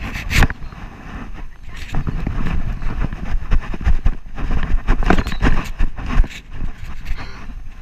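Wind buffeting and rubbing noise on a chest-mounted action camera's microphone as the wearer moves about, a steady low rumble broken by irregular sharp knocks.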